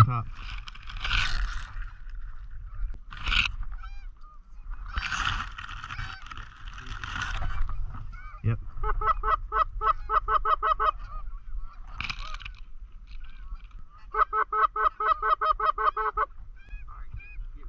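Goose honks in two quick runs of short, evenly spaced calls, about six a second, with patches of rustling noise between them.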